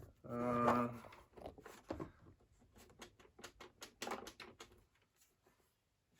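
Light clicks and taps of the buttons and parts of a plastic and metal puzzle box being pressed and handled, a dozen or so sharp clicks over about four seconds. A brief low hum comes first, the loudest sound here.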